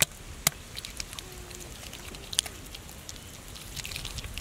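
Wet mud being pressed and smoothed by hand, with a few sharp wet clicks over a low outdoor background.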